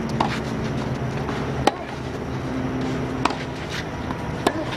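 Tennis rackets striking the ball in a doubles rally, four sharp hits about every second and a half, the one near the middle the loudest.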